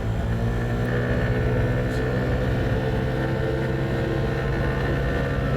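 Yamaha NMAX 125 scooter's single-cylinder engine running at a steady pitch.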